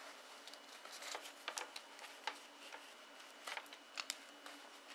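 Faint handling noise: a run of small, irregular clicks and light rustles from objects being handled by hand, over a low steady hiss.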